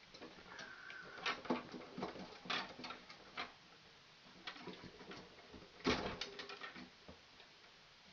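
Wire strippers stripping the insulation off the ends of solid copper Romex neutral wires: a string of short clicks, snips and scrapes, with the loudest snip about six seconds in.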